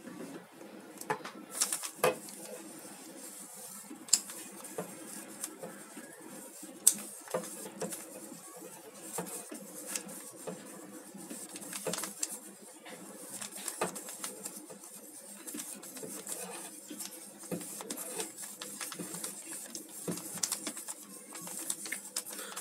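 Plastic 3x3 speed cube being turned rapidly by hand: a run of irregular clicks and clacks as its layers snap round, with the odd louder knock. The cube is catching a little rather than turning smoothly.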